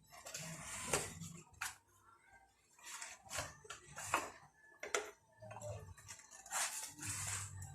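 Packaging of a boxed wireless doorbell being handled and opened: irregular crinkling, rustling and light clicks of cardboard and plastic wrap.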